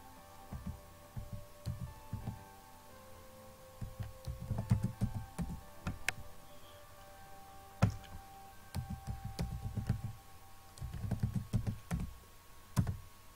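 Typing on a computer keyboard in several short bursts of rapid keystrokes, with a few louder single clicks in between.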